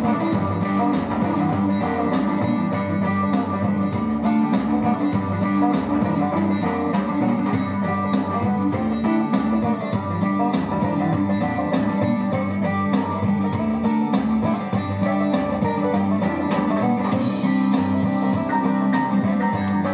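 Guitar music played through a TDA2030A amplifier board driving a single 6-ohm Sony speaker, in mono. It sounds kind of washed out, which the owner puts down to a capacitor on the board that probably needs to be larger.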